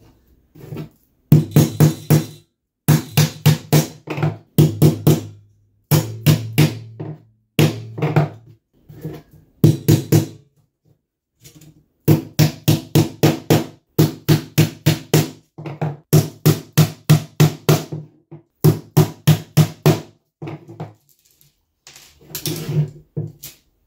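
Carpet fitter's hammer tapping an aluminium Zee Bar carpet-finishing profile to work it around a curve. Quick runs of taps, about five a second, come in bursts of one to three seconds with short gaps, and each tap rings with the same low note.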